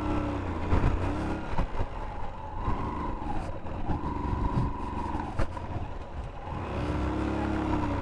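Motorcycle engines running at low speed on a dirt track, a steady low rumble with several rising-and-falling revs. A few sharp knocks, about a second in and past the middle.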